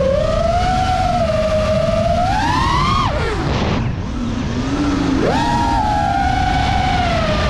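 Five-inch FPV quadcopter's brushless motors and props whining, the pitch rising and falling with the throttle. A little after three seconds in the throttle is chopped and the whine drops low and quieter, then it is punched back up to a high whine just after five seconds.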